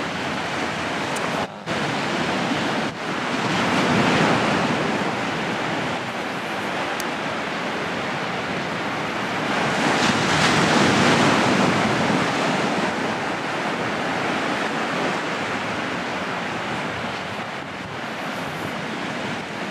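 Sea waves breaking and washing up on the beach: a continuous surf rush, with breakers swelling up about four seconds in and again, longer, about ten seconds in.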